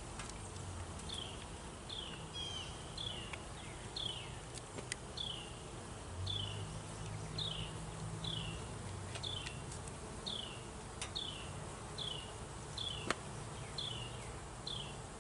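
Honeybees buzzing around an open hive, a low hum that rises and falls. Over it a short high falling chirp repeats about twice a second, and a few light clicks come from handling the hive, the loudest about thirteen seconds in.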